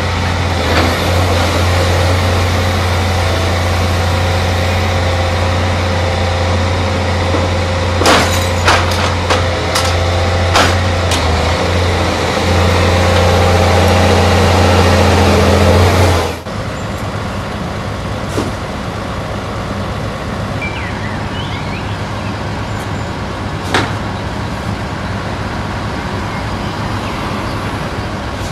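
Komatsu PC490LC hydraulic excavator's diesel engine running with a steady low hum, and a cluster of sharp knocks from the demolition grapple clattering against brick and debris about eight to eleven seconds in. About sixteen seconds in the engine sound drops abruptly to a quieter level, with a couple of single knocks later.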